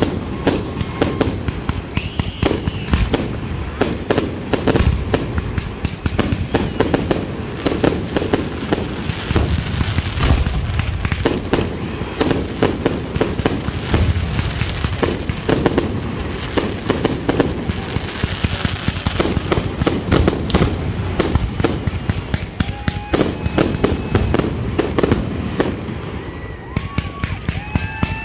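Aerial fireworks display in a dense barrage: shells launching and bursting many times a second with crackling, one bang running into the next. A few short rising-and-falling whistles cut through, about two seconds in and again near the end.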